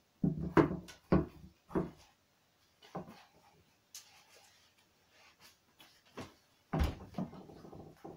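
Handling noise from a cycling shoe and neoprene overshoe being worked on a wooden table: a quick run of knocks in the first two seconds, softer scattered handling, then a heavier thump near the end followed by rustling.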